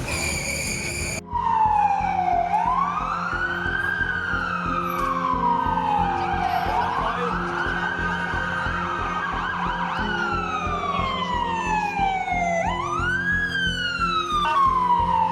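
Emergency vehicle siren on a slow wail, rising and falling about every four seconds, over the hum of traffic. A steady high tone sounds for about the first second.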